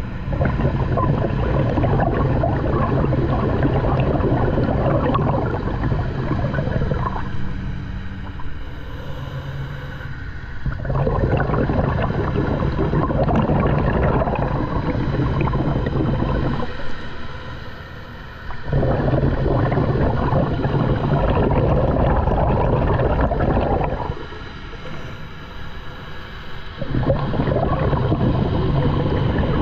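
Scuba diver breathing through a regulator underwater: four long rushes of exhaled bubbles, each several seconds, with short quieter pauses for the breath in. A steady low hum runs underneath.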